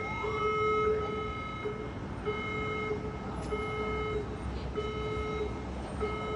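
Hotel fire alarm sounding the evacuation signal: a buzzy electronic tone that holds unbroken for the first second or so, then pulses on and off about once a second.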